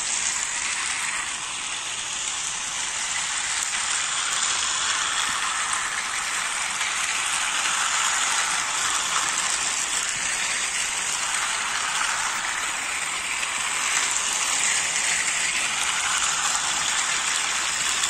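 Several battery-powered Thomas & Friends toy trains running on plastic track, their motors and wheels making a steady whirring rattle that stays even throughout.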